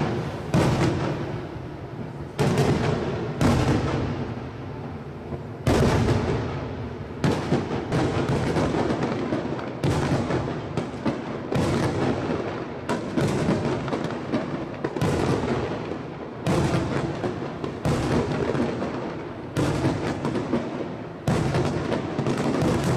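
Fireworks display: aerial shells bursting in quick succession, a loud boom about once a second, each trailing off before the next.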